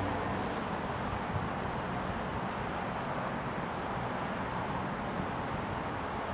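Steady road traffic noise: an even rumble with no single vehicle standing out.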